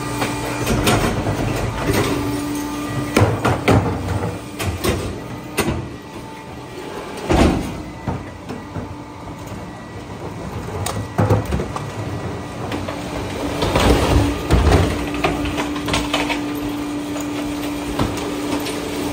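Heil 5000 rear loader garbage truck packing a load: the hydraulic packer runs with a steady hum that drops away mid-way and returns for the last several seconds. Plastic trash carts bang and clatter repeatedly against the hopper as they are emptied.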